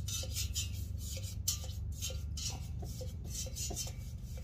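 Stiff brush scrubbing a diesel heater's metal part in carb cleaner, in quick uneven scratchy strokes with light clinks of metal between them.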